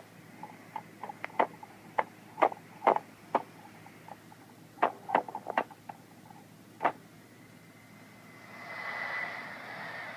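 Ham radio receiver's audio while tuned near a homemade 11.14 MHz oscillator: a scatter of short clicks and pops, then, about eight and a half seconds in, a steady hiss carrying a faint high tone as the oscillator's signal comes through, rough with phase noise.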